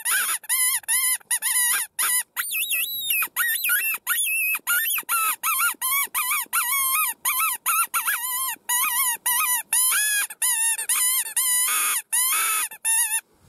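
Homemade predator call made from a cheap dog squeaky-toy squeaker, blown by mouth in a long run of short, high squeals, about two a second, each wavering in pitch. It is meant to imitate a wounded animal's distress cries to draw in coyotes.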